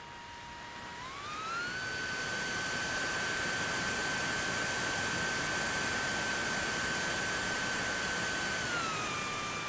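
TechOne FPV900 flying wing's F80 2500 KV brushless motor and three-blade propeller whining in flight, heard from the onboard camera with a steady rush of wind. About a second in the pitch rises and holds high as the throttle opens, then drops near the end as the throttle comes back.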